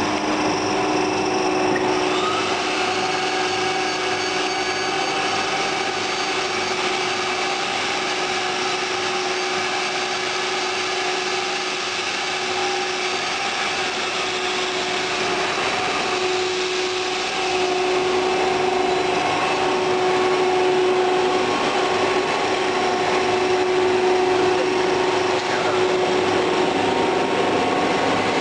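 HDPE pipe extrusion line running: a steady mechanical whir from its motors and drives, with several held tones over it and a brief rising whine about two seconds in.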